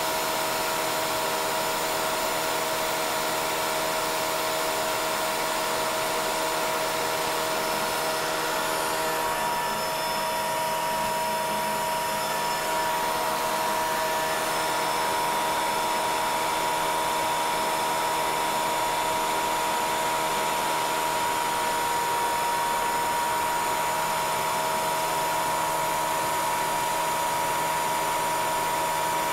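CNC Bridgeport milling machine cutting stacked 1/16-inch aluminum sheet with an end mill: a steady spindle whine over a continuous hiss from the cutting and the mist-coolant nozzle.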